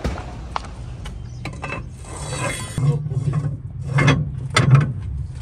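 Tractor diesel engine running, heard close to its belt and pulley: a low steady hum that becomes clear about three seconds in, with a few sharp metallic clatters.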